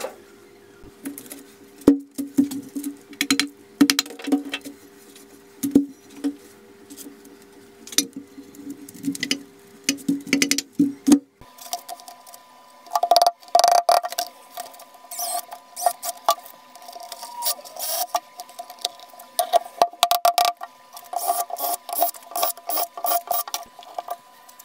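Handling noise from a cast gearbox housing and a sheet of gasket paper on a cardboard-covered bench: irregular clicks, taps and scraping, with the paper sliding and rustling as the housing is pressed down onto it in the second half.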